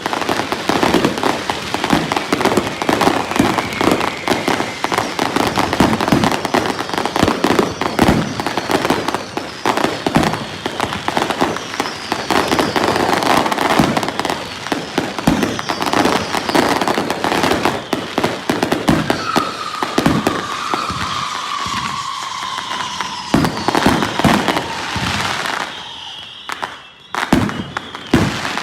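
Consumer firework cakes firing a finale barrage: rapid, overlapping bangs and crackling, with whistles gliding in pitch through it, including a long falling whistle about two-thirds of the way in. The barrage thins to a few separate bangs near the end.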